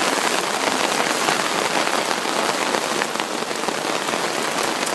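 Light rain falling steadily: a dense, even patter of drops, with a few sharper single drop hits near the end.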